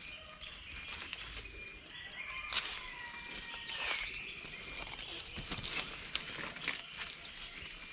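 Several small birds chirping and calling in the forest, with short high notes throughout and a sweeping call about four seconds in.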